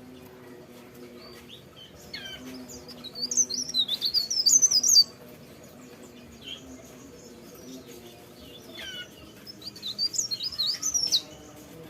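Cikrak daun (leaf warbler) singing two rapid bursts of high, twittering notes, each a few seconds long and opening with falling sweeps, separated by a pause. A faint steady low hum sits underneath.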